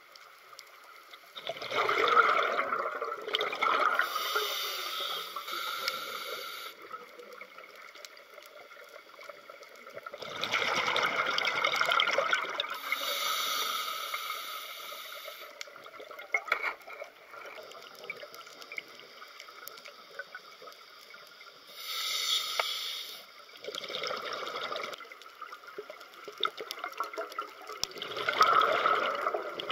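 Scuba diver breathing through a regulator underwater: gurgling bursts of exhaled bubbles every several seconds, with a hiss from the regulator in between.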